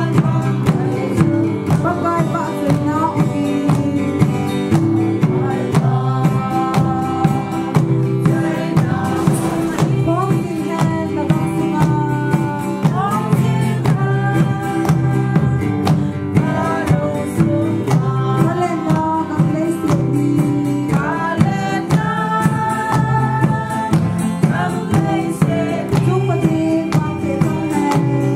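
A mixed group of men and women singing a hymn together, with acoustic guitar strumming, a drum, and hand clapping keeping a steady beat of about two a second.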